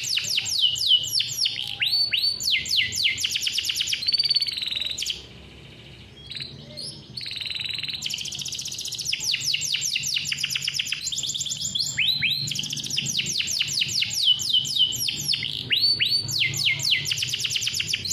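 Male domestic canary singing long rolls: fast trills of rapidly repeated high notes, run after run. It breaks off for about two seconds about five seconds in, then sings on.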